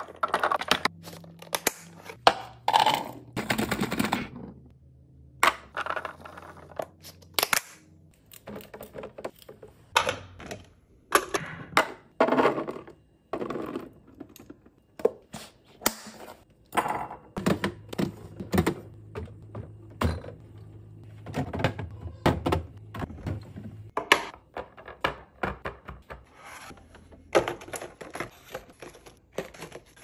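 Irregular clicks, clatters and thunks of clear plastic food-storage containers being handled. At the start, baby carrots tumble from a plastic colander into a plastic container. Around the middle, latching lids snap shut, and near the end plastic-wrapped snack packs are set into a clear plastic bin.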